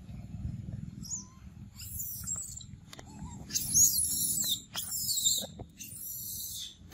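Macaques giving a run of high-pitched squeaks and chirps, starting about two seconds in, over a low rumble of camera handling.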